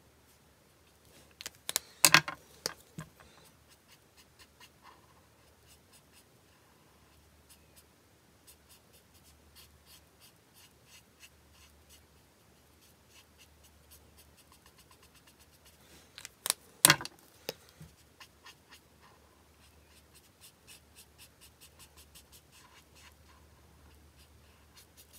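Ohuhu alcohol marker nib stroking over white card stock: faint, quick scratchy strokes. These are broken twice, about two seconds in and again about two-thirds of the way through, by a short run of sharp clicks and knocks from handling the markers.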